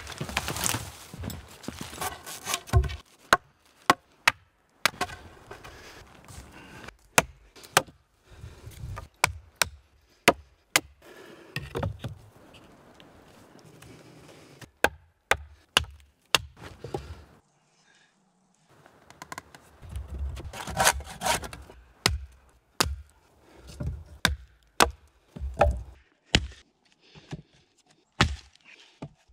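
Wood being chopped and knocked with a hand tool: a run of sharp, irregular chops on logs, with stretches of scraping and handling of wood between them.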